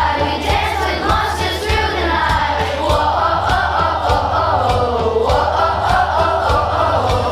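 Background music: a group of voices singing together over a steady beat.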